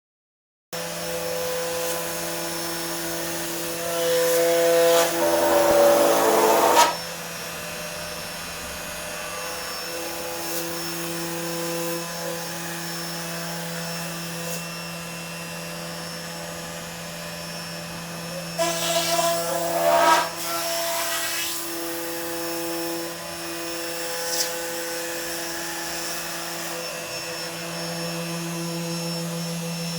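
CNC machine running under Mach3 control: a steady hum throughout, with two louder passages of stepper motor whine that glide up and down in pitch, about four seconds in and again about nineteen seconds in. These are axis moves running cleanly now that an opto-isolated breakout board has cured the machine's electrical noise problem.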